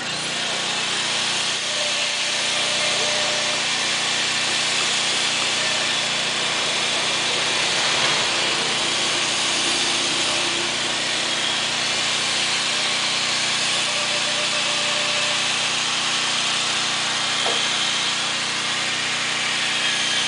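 An engine running steadily, a constant mechanical noise that neither rises nor falls.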